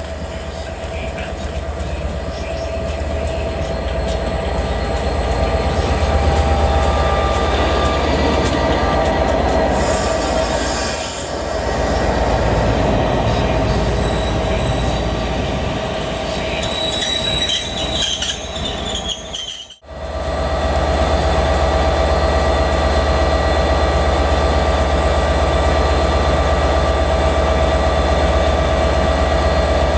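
Train running through a station with a steady hum and a brief high wheel squeal a little past halfway. The sound cuts off abruptly about two-thirds through and gives way to a steadier, louder train hum.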